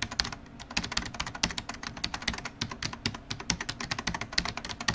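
Rapid, irregular clicking, several clicks a second with some louder than others, over a faint low hum: a typing-like sound effect.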